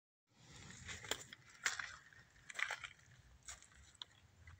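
Faint footsteps crunching on dry forest litter, four or five steps, with a small click near the end.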